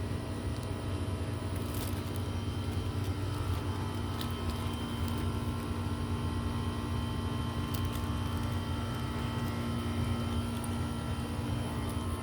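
Steady low rumble of motor-vehicle engine noise with a constant hum, and a few faint clicks.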